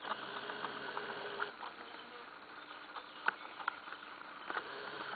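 Steady insect drone, with a few faint scattered clicks and snaps.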